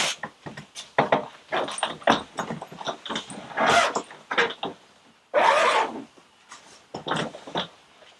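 A hard-shell suitcase being closed and handled on a cardboard box: a run of scrapes, rubs and small knocks of the shell, with two longer rasping strokes about four and five and a half seconds in.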